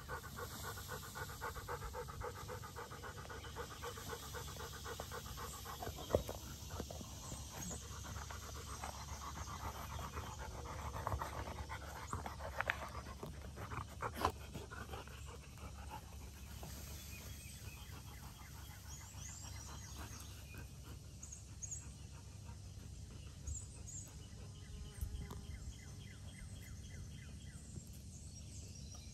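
A dog panting steadily close by, with a few sharp knocks and faint high chirps now and then.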